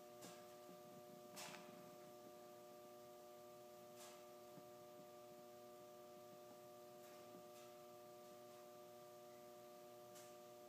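Near silence with a faint, steady hum of several pitches, and a few soft faint ticks.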